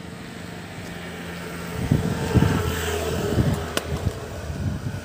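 A motor vehicle passing on the road, its steady engine hum joined by tyre noise that swells about two seconds in, with wind buffeting the microphone.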